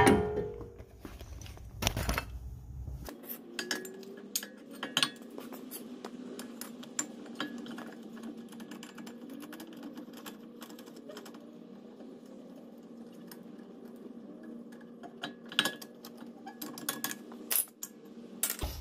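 Scattered metallic clicks and clinks of hand tools working at a BMW E60 front brake caliper while its piston is pressed back in, with a heavier knock at the start.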